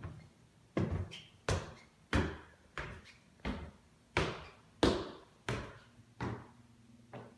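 Footsteps going down hardwood stairs: about ten evenly paced footfalls, roughly three every two seconds, the last few softer.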